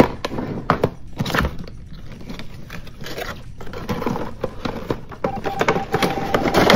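Cardboard toy box with a plastic window being opened by hand: irregular rustling, crinkling and scraping of the packaging, with scattered knocks.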